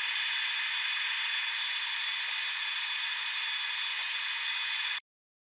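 Monport 100W fiber laser engraving aluminium, a deep multi-pass engraving of gear teeth: a loud, steady high hiss with thin whining tones, cutting off abruptly about five seconds in.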